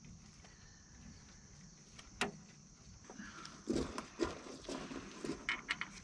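Small metal-on-metal clicks and knocks of driveshaft U-joint bolts being handled and fitted at a truck's rear axle yoke: one sharp click about two seconds in, then a run of lighter clicks in the second half, over a steady high-pitched hiss.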